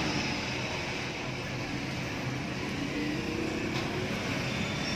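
Steady background noise: a low hum with a hiss over it, even throughout with no distinct clicks or beeps.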